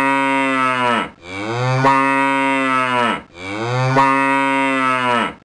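Cow mooing: a run of long, loud moos, each about two seconds long and dropping in pitch as it ends, with short breaths between them.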